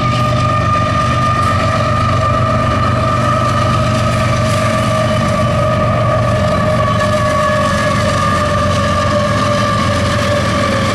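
CSX diesel freight locomotives passing: a steady low engine rumble under a sustained high tone that falls slowly in pitch.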